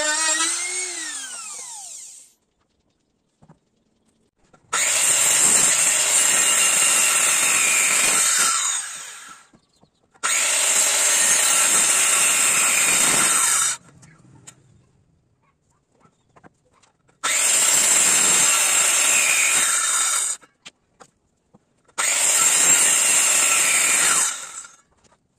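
A handheld trimmer router spins down, its pitch falling away over the first two seconds. Then a handheld electric circular saw cuts into a teak beam four times to shape a tenon at the beam's end. Each run lasts about three to four seconds and stops abruptly, with short quiet gaps between them.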